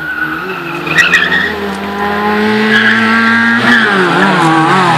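Small hatchback's engine revving hard through the corners of a kart track, its pitch holding high and then dropping and wavering about three and a half seconds in as the driver lifts or shifts. Tyres squeal briefly about a second in.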